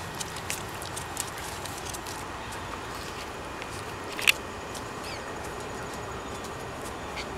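Steady outdoor background noise with a few light clicks, one sharper click about four seconds in.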